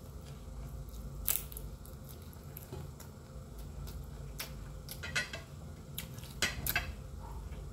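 Close-up eating sounds: chewing and mouth clicks over a low steady hum, with a few sharp clicks of a ceramic bowl and fingers against a plate, the busiest run about five seconds in.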